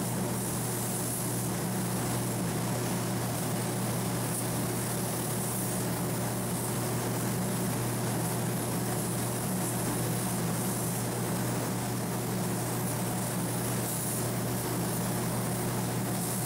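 Compressed-air spray gun hissing as it sprays sealer onto a car trunk lid, the hiss swelling briefly now and then, over a steady low hum.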